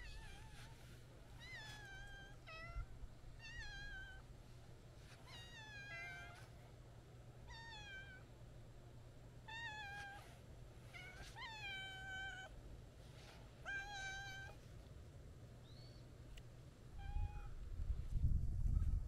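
Orange-and-white cat meowing over and over as it walks up to a person, about nine short rising-then-falling meows a second or two apart. A louder low rumble comes near the end.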